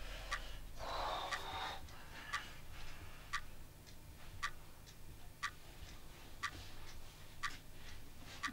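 A clock ticking steadily, a sharp tick about once a second with fainter ticks between. About a second in, a brief noisy rush like a breath sounds over the ticking.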